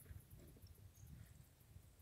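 Near silence, with only a faint low rumble.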